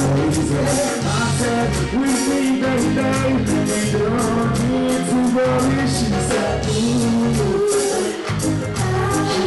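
Live reggae music played loud through the stage sound system, with a male singer singing a sustained, gliding melody into the microphone over a steady beat, bass and drums.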